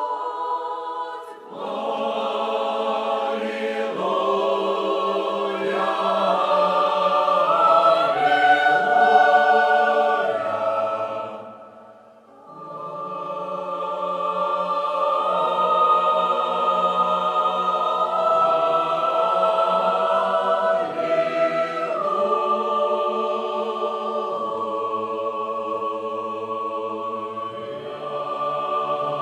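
Mixed church choir of men's and women's voices singing, with a short break between phrases about twelve seconds in.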